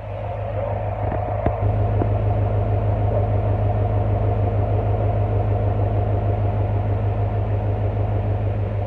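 The 1967 Chevrolet El Camino's 327 small-block V8 idling steadily, heard at the tailpipes through its new original-style dual exhaust as a low, even, pulsing exhaust note. It grows a little louder about a second and a half in.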